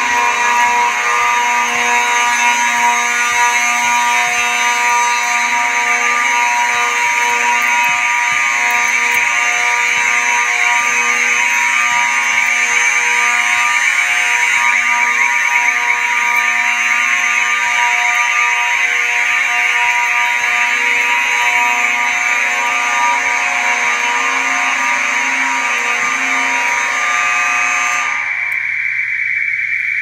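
Simplex fire alarm horns sounding continuously during a horn test, a loud, steady buzzing horn tone with no on-off pattern. Near the end the lower tones drop away, leaving a higher, thinner tone.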